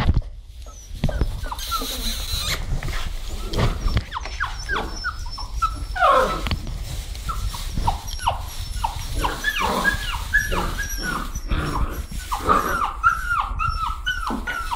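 Puppies yipping and whimpering as they play: many short, high calls that fall in pitch, few at first, then coming thick and fast through the second half.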